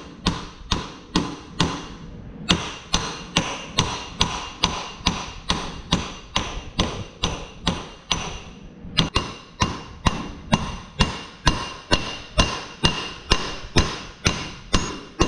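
Steady hammer blows on metal, about two a second, each with a short ring, driving a shaft home into its bearing in a Vermeer disc mower's drive pod.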